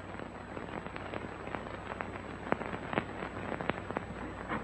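Steady hiss and irregular crackling pops of a worn 1930s optical film soundtrack, over a low steady hum.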